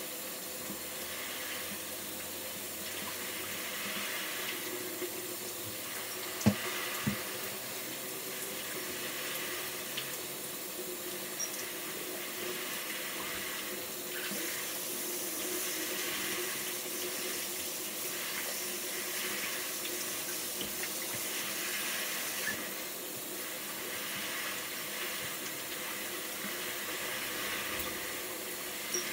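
Bathroom sink tap running steadily, water pouring into the basin, with two sharp knocks about six and seven seconds in.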